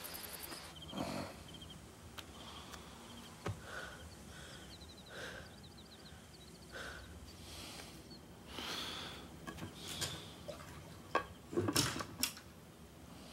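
Quiet film sound effects: short high bird chirps in two runs, soft breathy swells every second or two, and a few sharp knocks and clatters near the end.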